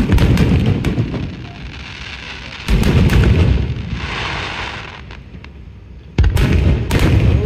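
Aerial fireworks shells bursting: three loud booms, at the start, near three seconds and just past six seconds, each trailing off, with a crackling hiss after the second.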